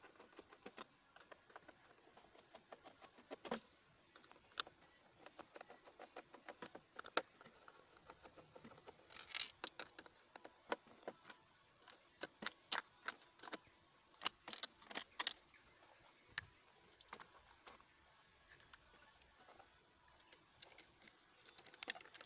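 Sped-up handling sounds: a quick, irregular run of faint clicks, taps and rattles from small screws, a screwdriver and hard plastic parts being worked on. The clicks come thickest in a busy stretch in the middle.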